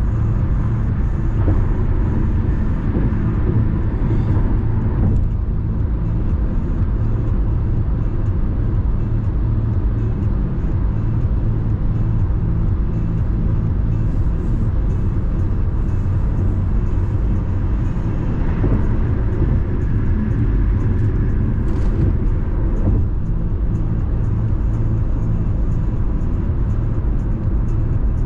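Car driving on the road: a steady low rumble of tyres and engine, with a few brief swells in the noise.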